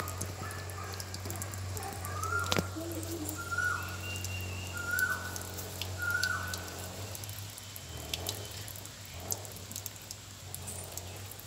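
Soapy hands rubbing together, with faint wet squelches. Over it, a bird calls four times in short clear notes about a second apart, each dropping at the end. There is one sharp click early on, over a steady low hum.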